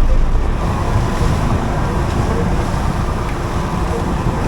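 Small boat under way at sea: a steady low rumble of its running engine, with wind and water noise.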